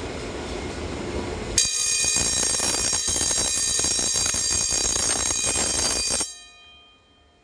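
Fire alarm bell ringing loudly with a rapid, continuous strike, set off during a smoke detector test; it starts about a second and a half in, after a steady rumbling noise, and cuts off suddenly about four and a half seconds later.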